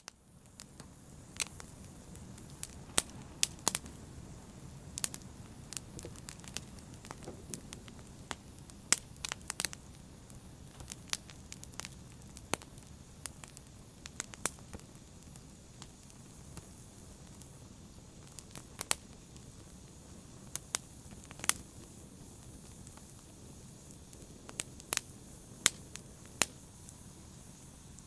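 Wood fire burning in a fireplace: a steady low rumble and hiss with sharp crackles and pops at irregular intervals, a few of them much louder snaps. It starts suddenly out of silence.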